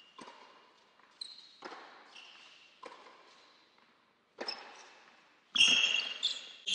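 Tennis ball struck by rackets and bouncing during a rally on an indoor hard court, each hit echoing in the hall, with short high squeaks of shoes on the court surface. A louder, denser stretch of noise comes in about five and a half seconds in.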